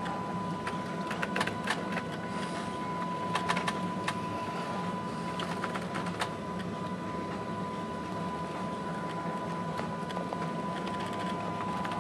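Ship's bridge at sea: a steady low engine hum with a continuous high-pitched tone, and scattered light clicks and rattles.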